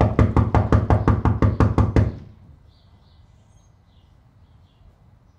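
Rapid, insistent knocking on a door, about six knocks a second for roughly two seconds, then it stops.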